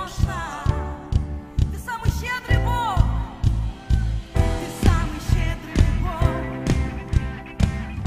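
Live worship band playing an upbeat pop song with a steady drum beat. A singer's melodic line in Russian wavers and glides over the band in the first few seconds, then sustained chords carry on.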